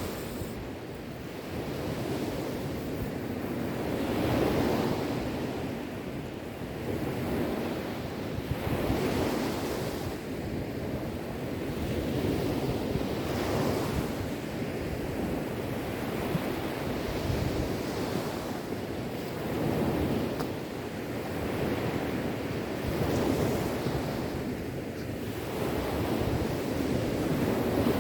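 Sea waves washing onto the shore, a continuous surf noise that swells and ebbs every few seconds, with some wind on the microphone.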